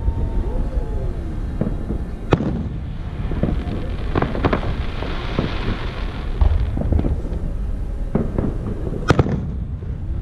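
Aerial fireworks shells bursting over a steady low rumble, with sharp reports about two seconds in, around four and a half seconds, and a close pair near the end. A hiss rises in the middle.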